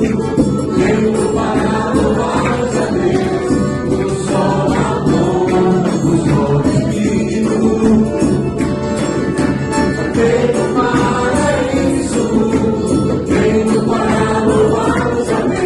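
Christian worship music: voices singing together over instrumental accompaniment.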